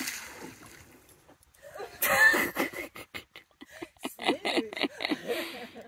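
A dog splashing as it wades out of shallow dam water, loudest about two seconds in, then a person's voice in short rapid bursts until a sudden cut.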